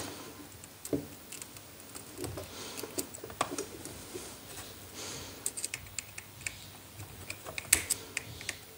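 Faint, irregular small clicks and taps of wires and a plastic bulb holder being handled, with a screwdriver working a brass terminal screw near the end.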